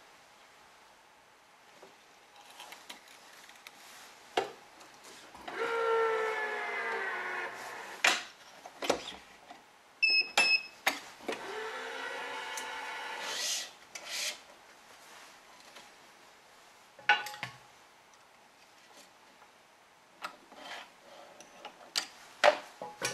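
Yonex BG80 badminton string pulled through the cross weave of a racket, squeaking as it rubs against the strings, twice for about two seconds each. Scattered sharp clicks and taps from handling the stringing machine's clamps and tension head.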